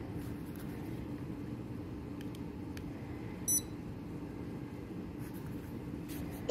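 A single short, high-pitched electronic beep about halfway through, over a steady low room hum, with a couple of faint clicks just before it.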